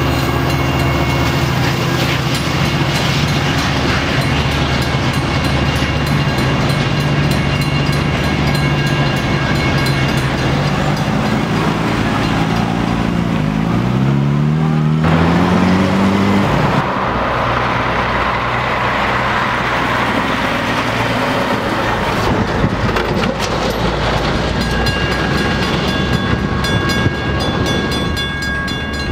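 Metra commuter train and its diesel locomotive passing over a railroad grade crossing with a steady engine hum, while the crossing bell rings. About halfway the engine note rises and fades and road traffic passes. Near the end a crossing bell rings again.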